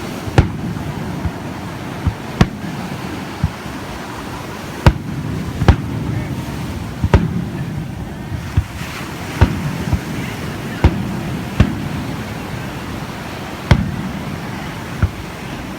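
Fireworks shells bursting: about a dozen sharp bangs at irregular intervals, some close together, over a steady background of low noise.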